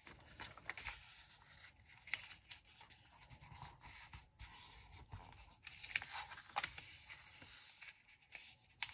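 Paper being handled and folded on a desk: faint rustling and rubbing with scattered soft clicks and taps.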